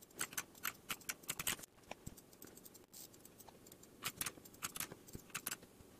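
Typing on a computer keyboard: quick, irregular key clicks in two spells, with a pause of about two seconds in the middle.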